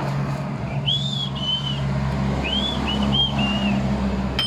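High whistled phrases repeated about three times over a steady low hum: each phrase is a rising-then-falling note followed by shorter level notes. A sharp metallic clink rings near the end.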